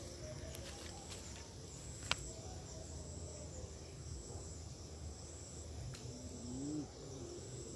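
Faint outdoor ambience: a steady high insect drone over a low rumble, with one sharp click about two seconds in and a short rising tone near the end.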